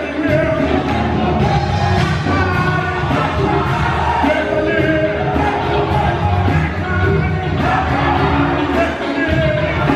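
Gospel choir singing live with a male lead singer on microphone, over band accompaniment with drums.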